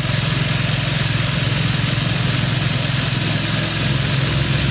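Briggs & Stratton 17.5 HP engine of a Craftsman LT2000 lawn tractor running steadily during a test run after a full service. The deepest note shifts slightly near the end.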